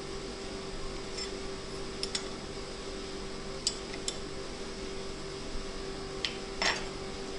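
TV-4 benchtop lathe running with a steady hum, with a few light metallic clicks and taps scattered through.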